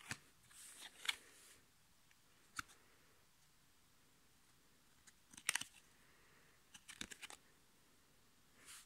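Football trading cards being handled: faint, sharp clicks and flicks as cards are picked up and tapped against each other. There is a quick cluster of clicks about five and a half seconds in and another around seven seconds.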